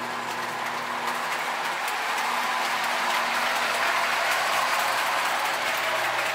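Modern Marx tinplate toy trains running on three-rail track: a steady whirring and rattling from the motors and metal wheels on the rails, growing a little louder about two seconds in.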